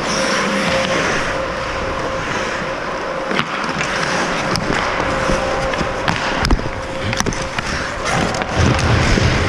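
Hockey skates scraping and carving on rink ice during a scramble in front of the goal, with several sharp clacks of sticks and puck.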